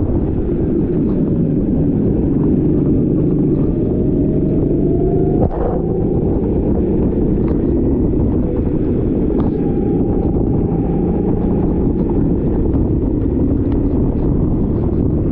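Rental racing kart's small engine running hard under heavy wind rumble on the microphone. Its note climbs slowly as the kart accelerates, a sharp knock comes about five and a half seconds in, and the note later holds steady.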